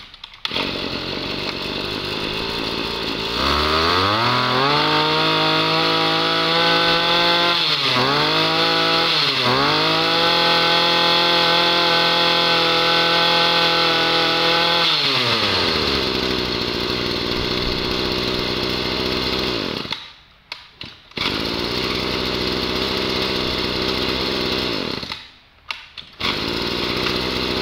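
Tanaka 23cc two-stroke brush cutter engine running: it idles, is revved up about three and a half seconds in and held at high speed with two quick throttle dips, then drops back to idle about halfway through. Later the sound cuts out briefly twice.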